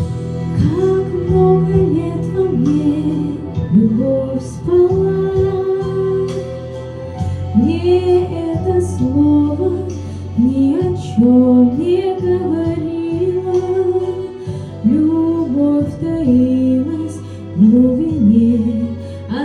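A woman singing an old Russian love song over steady, sustained instrumental accompaniment.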